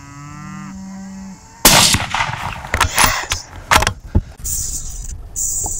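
A low drawn-out call, then a single loud rifle shot about a second and a half in, followed by several sharper knocks.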